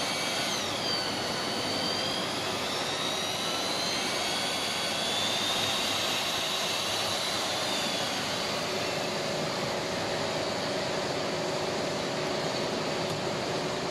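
Electric facing tool (pipe-end planer) of an HDPE butt-fusion machine running, a steady motor noise with a high whine that dips about half a second in and wanders in pitch as it trims the pipe ends. The whine fades after about eight seconds while the steady running noise goes on.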